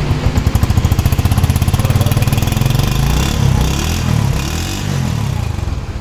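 Honda CD 70's 72 cc four-stroke single-cylinder air-cooled engine running, heard at the chrome silencer outlet. It puts out a steady putter at first, is revved up from about two seconds in, and drops away near the end.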